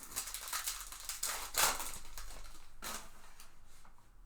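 Trading cards being handled: Topps Chrome cards slid and flipped off a stack, giving a run of quick dry scrapes and rustles, with a louder scrape about a second and a half in.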